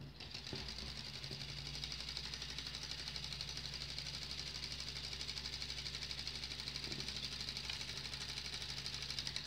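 LEGO-built solenoid engine running: the solenoid plunger clicks back and forth in a rapid, even clatter as its two wheel flywheels spin.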